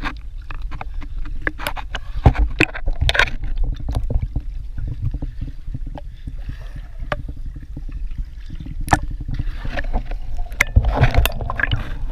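Water splashing and sloshing close to the microphone, with many irregular sharp splashes over a steady low rumble.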